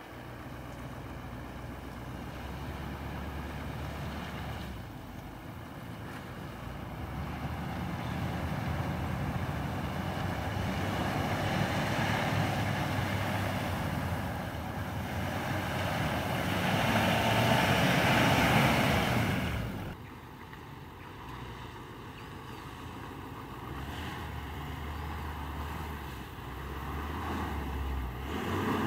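Toyota LandCruiser 200 Series V8 engine working as the 4WD crawls through a rough ditch, with traction control pulling it through while two wheels have little grip, and wind on the microphone. The sound builds to its loudest about two-thirds of the way through, drops suddenly, then builds again.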